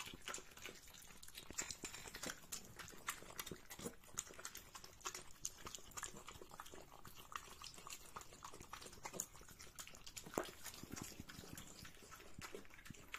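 Jack Russell terriers eating wet meat in jelly from bowls: a steady, irregular stream of soft licking, chewing and smacking clicks.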